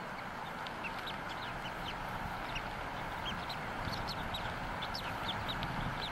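Newly hatched bald eagle chick peeping: many short, high peeps, irregularly repeated over a steady hiss.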